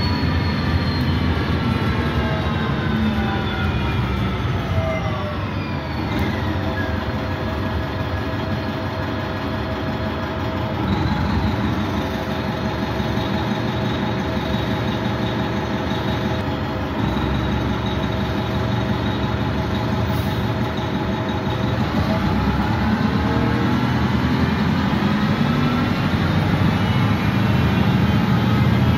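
Interior drivetrain sound of a 1989 Gillig Phantom transit bus with a Detroit Diesel Series 50 engine and Voith D863.2 transmission: a layered whine that falls in pitch over the first few seconds as the bus slows. It then holds a steady pitch for a long stretch and rises again over the last several seconds as the bus accelerates.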